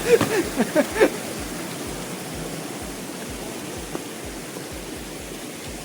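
Steady rush of water from a waterfall, with a person's voice briefly in the first second.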